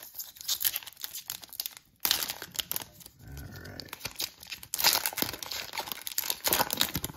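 Foil wrapper of a Panini Absolute Football trading-card pack crinkling and tearing as it is peeled open by hand, in irregular bursts, with a short lull about two seconds in and the loudest crackling in the second half.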